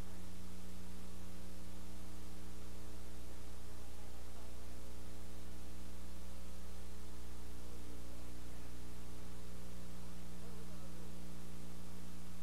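Steady mains hum with a steady hiss and no game sound: only the hum and noise of a silent stretch of the audio track.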